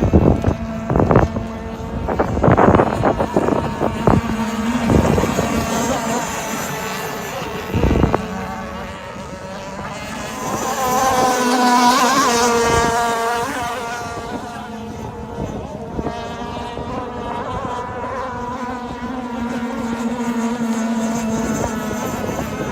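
Two-stroke petrol engine of a radio-controlled gas model boat running at speed on the water, growing louder and higher in pitch as it passes close about halfway through, then fading back to a steady drone. Several sharp thumps in the first few seconds.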